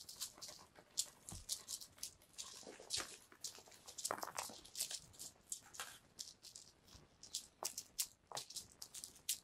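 A ribbon cat teaser toy being swished through the air and dragged across a foam floor mat, giving many short, irregular rustles and swishes.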